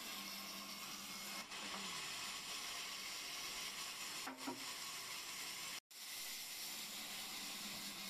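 Vertical band saw running with a steady hiss. A low hum slides down in pitch just after a second in, and the sound cuts out for an instant near six seconds.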